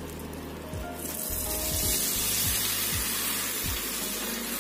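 Hot tempered mustard oil sizzling as it is poured from a pan onto spiced lemon pickle in a glass bowl. The steady hiss sets in about a second in.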